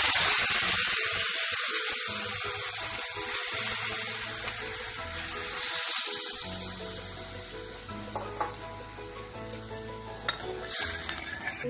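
Milk poured into a hot karahi of ghee-fried vermicelli, hitting the hot fat with a loud sizzle that gradually dies down as the milk settles.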